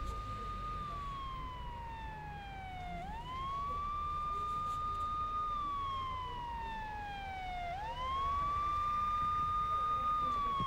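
Police car siren wailing in slow cycles. Each one climbs quickly to a high note, holds it for about two seconds, then slides slowly down over about two seconds, and the pattern repeats about every four to five seconds, two and a half times.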